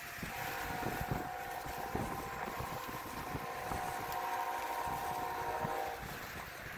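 Footsteps in snow, roughly one a second, as a person walks across the ice. A steady whine of several tones runs through most of it and cuts off near the end.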